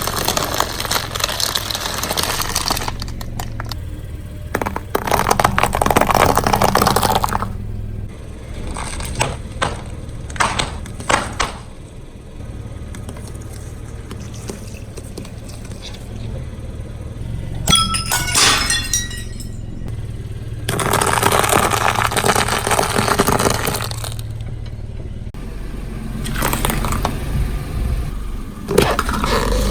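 A car tyre rolling over and crushing brittle objects: several bursts of crunching and cracking, some with a glassy breaking and clinking. A steady low car-engine rumble runs beneath.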